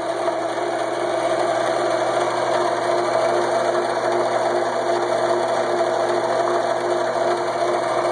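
Shopsmith jigsaw running smoothly on a belt drive with cast iron pulleys, a steady even mechanical hum.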